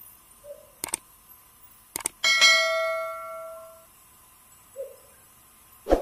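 Sound effects of a subscribe-button animation: a mouse click, another click about a second later, then a bright bell ding that rings out and fades over about a second and a half, with soft pops before and after.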